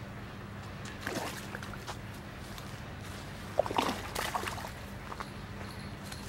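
A hooked fish splashing at the water's surface as it is drawn in, in two short bursts about a second in and near four seconds in, the second the louder.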